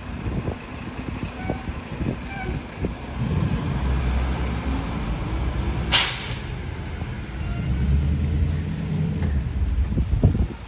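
McNeilus rear-loader garbage truck's diesel engine running and revving up twice as the truck pulls ahead, with one brief sharp noise about halfway through and a few clatters near the end.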